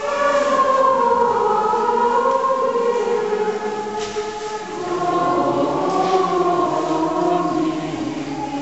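Large congregation of girls' and women's voices singing together in a slow, sustained chant.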